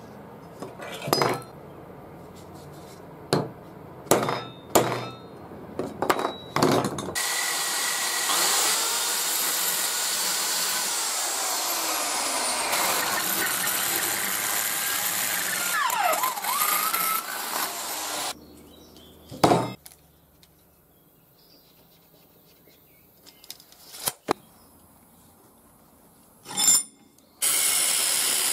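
Corded electric drill boring into a steel piece clamped in a bench vise, running for about ten seconds with its pitch wavering and dipping as the bit bites. Before it come several sharp knocks of metal being handled, and near the end an angle grinder starts up against threaded steel rod.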